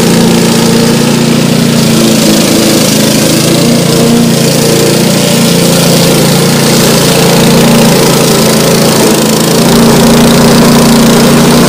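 Remote-controlled tracked lawn mower running steadily under load as it drives into and cuts tall grass and brush.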